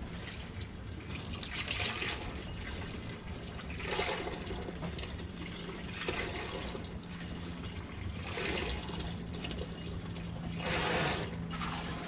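Portable emergency hand bilge pump being stroked, bilge water gushing out of its outlet hose into a stainless galley sink in surges about every two to two and a half seconds.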